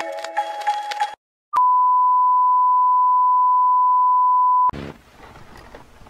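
A television test-card tone: one steady, loud, pure beep of the kind broadcast with colour bars, lasting about three seconds and cutting off suddenly. Before it a short chiming mallet tune ends about a second in, and after it comes faint hiss with a few clicks.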